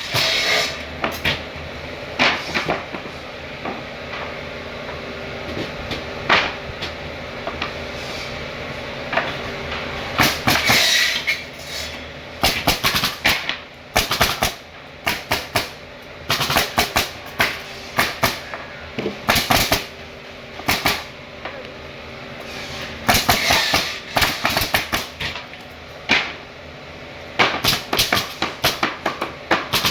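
Irregular knocks and hammer strikes on wood, some single and some in quick runs, over a steady low background hum.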